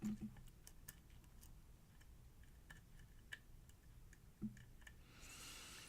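Faint, scattered clicks of a lock pick and tension wrench working the pins of a pin-tumbler lock cylinder during single-pin picking, with a soft knock about four and a half seconds in and a brief breathy hiss near the end.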